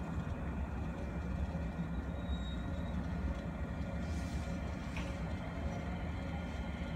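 JR West 227 series electric multiple unit pulling away from the platform at low speed: a steady low rumble with faint, steady humming tones from its running gear.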